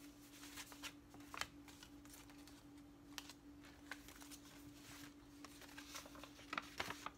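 Paper cards and stickers being shuffled and handled: scattered soft rustles and light taps, with a faint steady hum underneath.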